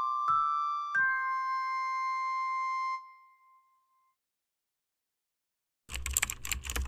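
Soft piano music ends on a held chord that fades out about three seconds in. After a pause, near the end, comes a quick run of computer-keyboard key clicks, as from typing a password.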